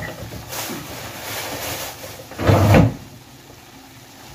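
A rustling hiss for about a second and a half, then a short knock about two and a half seconds in, the loudest sound.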